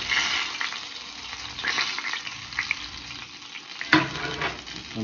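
Oil sizzling and crackling in a stainless frying pan around breaded croaker pieces, swelling several times as the finished pieces are stirred and lifted out with tongs. A sharp click comes about four seconds in.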